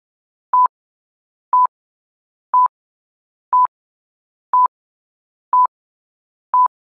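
Seven short electronic beeps at one steady pitch, evenly spaced once a second, with dead silence between them, like a timer or countdown sound effect.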